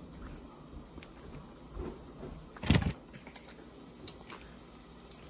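Quiet sounds of someone eating chicken wings and handling the food: scattered small clicks, and one louder brief rustling knock about two and a half seconds in.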